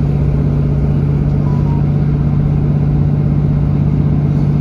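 Diesel passenger train heard from inside the carriage while under way: a steady low engine drone over the rumble of the running train.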